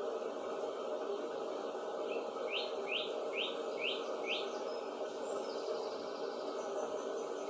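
A songbird calling: a run of five quick rising notes about two a second, then a few fainter high notes and a short trill. Under it runs a steady background hum.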